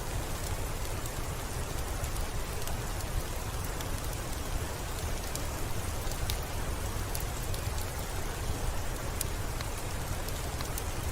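Steady rain falling, with scattered small sharp crackles from a wood fire over it.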